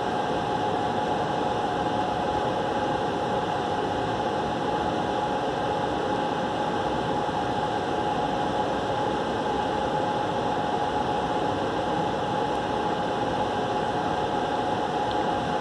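Steady fan-like hum and hiss of room background noise, with a constant whine just under 1 kHz that does not change.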